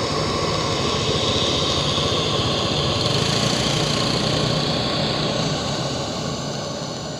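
An engine running steadily at idle, fading out near the end.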